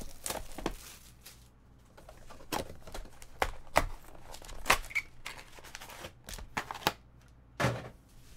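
Cardboard box of trading cards being opened by hand: shrink-wrap crinkling, the cardboard lid flap pulled open, and foil card packs rustling and clicking as they are lifted out and set down. It comes as an irregular run of sharp clicks and short rustles with brief pauses between.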